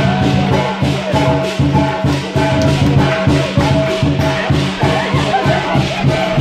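Lion dance percussion playing: drum, crash cymbals and gong in a fast, steady beat.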